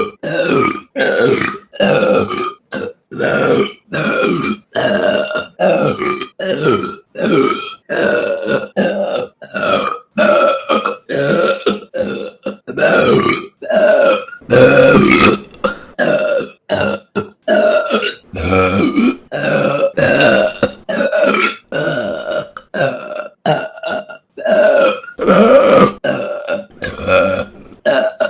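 A woman burping over and over, dozens of short burps in quick succession, each starting and stopping abruptly, with a few longer, drawn-out burps partway through.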